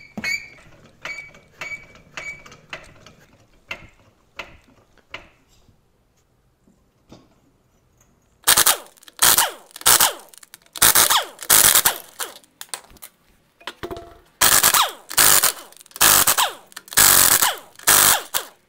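Cordless impact wrench hammering the lug bolts loose on a BMW E46's rear wheel, in a dozen short, loud bursts through the second half. Before it, a string of light mechanical clicks, about two a second, then a pause.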